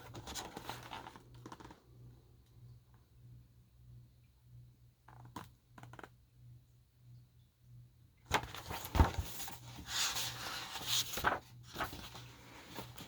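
Paper rustling and rubbing as a picture book's pages are handled and turned: a few faint clicks, then several seconds of rustling with knocks, the loudest a thump about nine seconds in.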